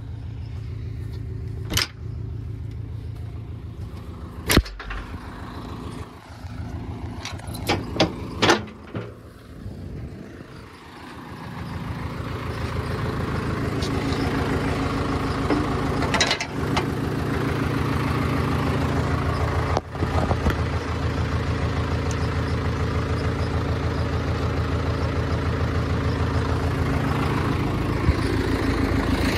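Farm tractor engine running steadily, with a few sharp knocks in the first ten seconds. Around eleven seconds in it grows louder and then runs on evenly.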